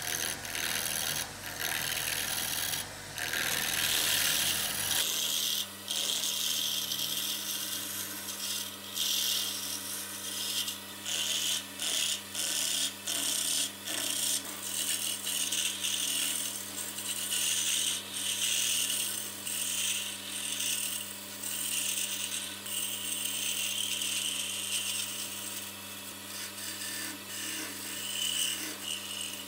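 Walnut wood being filed or rasped by hand in repeated scraping strokes with short gaps between them, over a steady low hum.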